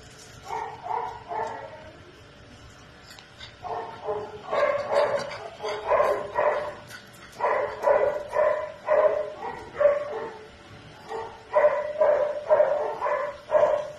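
A dog barking: short repeated barks, about two or three a second, in runs separated by brief pauses.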